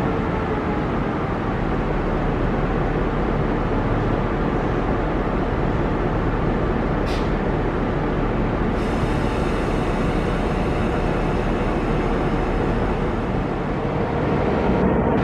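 Victorian Railways X-class diesel locomotive idling at a platform, a steady low rumble under the station roof.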